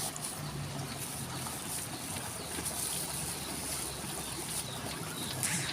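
Steady riverside background noise: water with a faint low hum under it.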